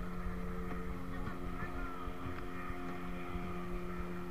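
Boat motor running steadily with an even hum.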